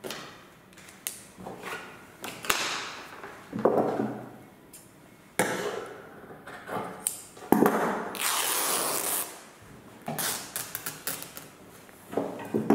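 Large sheets of pattern paper and cloth being handled on a table: rustling and sliding, with a few sharp knocks, and one longer swish a little past halfway.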